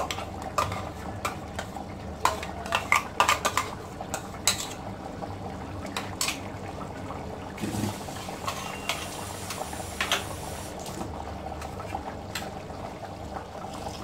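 A metal spoon scraping and knocking against a mixer-grinder jar and the rim of an aluminium pressure cooker, a run of sharp clinks and taps, thickest in the first half and sparser later, over the low steady bubbling of the curry.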